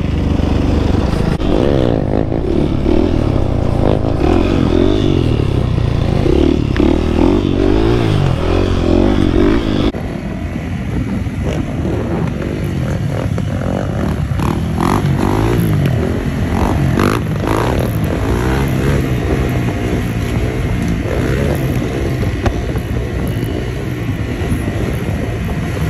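Motorcycle engines running and revving, the pitch rising and falling. About ten seconds in the sound changes abruptly to a different recording: a motorcycle engine running with other motorbikes and quads around it.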